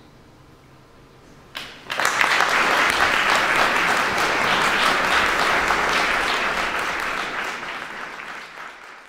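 Audience applauding. A single clap about one and a half seconds in, then the clapping swells at once and fades out toward the end.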